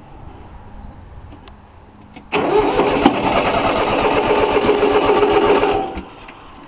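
Three-cylinder Yanmar diesel cranked on its starter for about three and a half seconds, starting about two seconds in, then cut off without the engine catching. It won't fire because the fuel lines were not bled.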